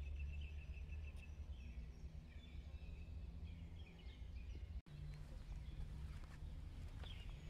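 Quiet outdoor ambience: faint bird chirps over a low steady rumble, with a brief break about five seconds in.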